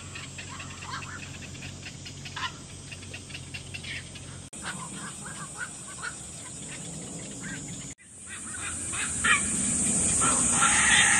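Birds calling in many short, repeated calls over a steady high hiss. The sound changes abruptly twice as clips cut, and in the last few seconds a louder, fuller sound swells up.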